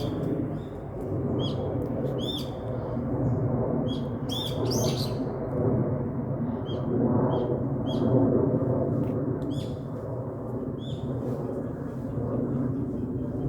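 Small birds chirping with short, repeated calls, over a louder, steady low rushing noise.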